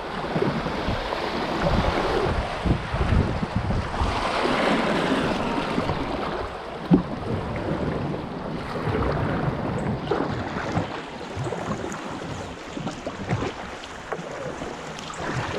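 Flowing river current rushing around a kayak, with wind buffeting the microphone in uneven low thuds and a single sharp knock about seven seconds in.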